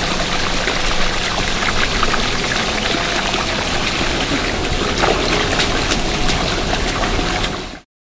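Water splashing and sloshing in a pool around a sea otter, with many small clicks and crackles through it; it cuts off suddenly near the end.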